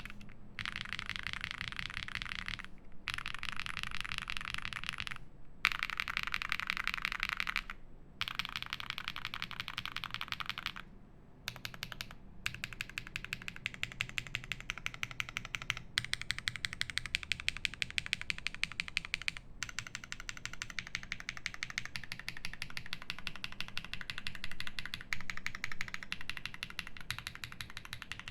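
Fast, continuous typing on a Thera75 mechanical keyboard built plateless with lubed Zaku switches and GMK keycaps. The keystrokes clack in quick runs, with short pauses every few seconds.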